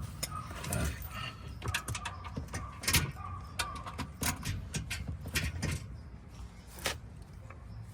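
Irregular clicks, taps and knocks of tools and parts being handled during oil-change work, over a low steady hum.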